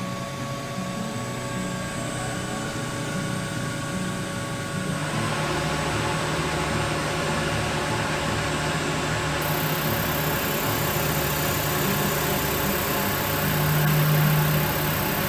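Common-rail injector test bench running a test cycle on a piezo injector: a steady mechanical hum. About five seconds in it grows louder and noisier, and a high hiss joins about nine seconds in.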